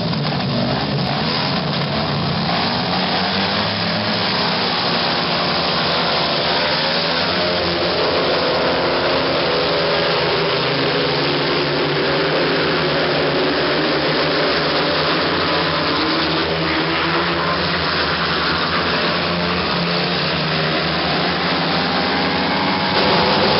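Speedway motorcycles, 500 cc single-cylinder methanol-burning engines, racing flat out around the track. The engines run loudly and continuously, their pitch rising and falling as the bikes go through the bends and past, and the sound gets a little louder near the end.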